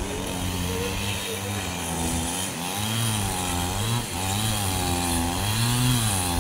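Two-stroke chainsaw cutting wood, its engine pitch sagging and rising again and again, about once a second, as the chain bites and frees.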